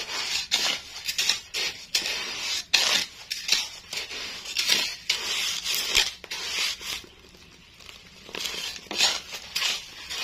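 Kerupuk being stirred and turned in hot sand inside a clay frying pot: repeated gritty scraping and rustling strokes, with a short pause about seven seconds in.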